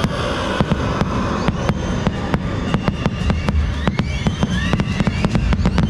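Fireworks going off in a rapid barrage of many sharp bangs and pops, several a second, with short whistling glides among them, over loud show music.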